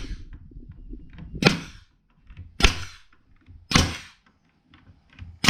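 A 1/4-inch crown stapler firing 1.5-inch staples into lumber, four sharp shots about a second apart.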